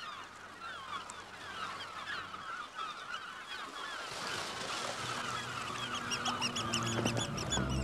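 A large flock of birds calling, many honking calls overlapping. Music with a regular beat fades in over the second half and grows louder toward the end.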